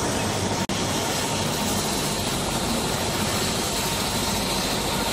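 Helicopter running close by: a steady wash of rotor and turbine noise with a faint whine, broken for a split second under a second in.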